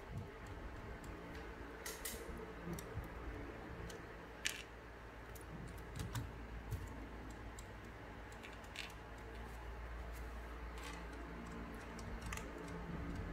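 LEGO Technic plastic parts clicking and rattling as a hand handles the model, a sharp click now and then at irregular intervals, the loudest about four and a half seconds in.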